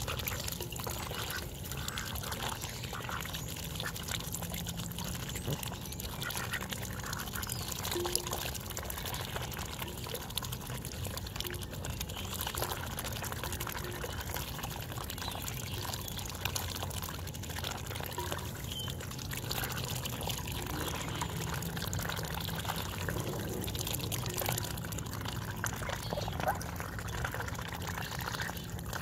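A flock of domestic ducks dabbling for peas in a metal bowl of water: a steady, continuous wet slurping and splashing of bills sifting through the water.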